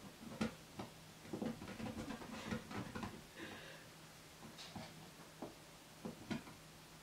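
Soft, irregular taps and scuffs as a small long-haired chihuahua shifts its paws on an inflated exercise ball and the ball is moved about, with one brief squeak about three and a half seconds in.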